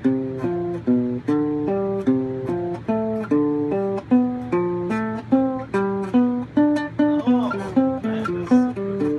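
An instrument playing a quick, steady run of chords, about two to three a second, alternating F and G triads through their inversions. A short sliding pitch comes in about seven seconds in.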